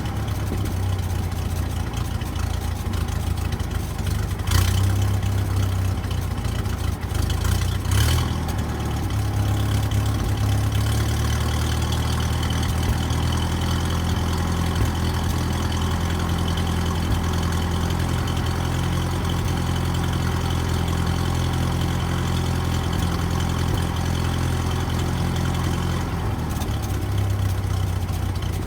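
1970 International Scout 800 engine idling through its newly replaced muffler, with two brief knocks about four and a half and eight seconds in. The idle settles and runs evenly after about ten seconds.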